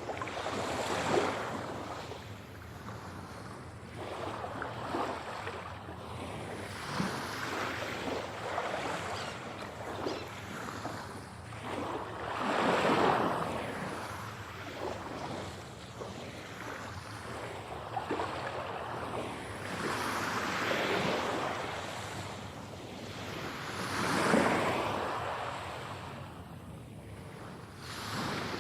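Ocean waves breaking and washing in, swelling and fading every several seconds, with the biggest surges near the middle and near the end.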